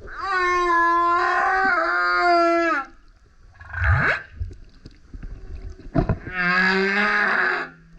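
Male humpback whale singing: a long call with many overtones and a wavering pitch for nearly three seconds, a quick rising sweep about four seconds in, then a short knock and another long call from about six seconds.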